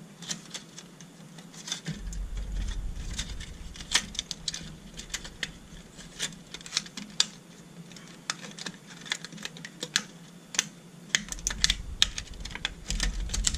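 Irregular light clicks and taps of fingers handling thin wires, tape and a small plastic connector on an LCD panel's metal frame.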